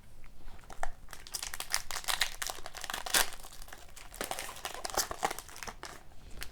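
Plastic wrapper of a hockey card pack crinkling and tearing as it is opened by hand, a dense irregular crackle with louder snaps.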